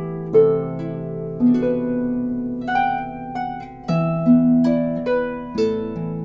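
A 36-string Blevins Riversong lever harp playing a slow Irish air. Single plucked melody notes ring out over held bass notes, each note starting sharply and decaying.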